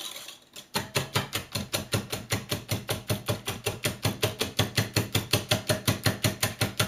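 Wire whisk beating egg and sour-cream batter in a glass bowl: a fast, even clicking of about six strokes a second as the whisk strikes the bowl, starting just under a second in.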